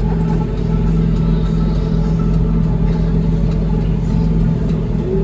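Engine of a grass-cutting farm machine running steadily at an even speed.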